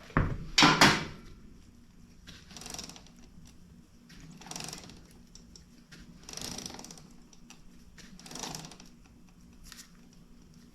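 Motorcycle rear wheel being turned by hand, its 520 drive chain running over the sprockets while the chain slack is checked for its tightest spot. A thump at the start and a louder stroke just after are followed by softer rustling strokes about every two seconds.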